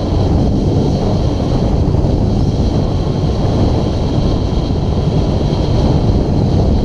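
Loud, steady wind noise on the microphone of a camera carried on a road bike descending at speed.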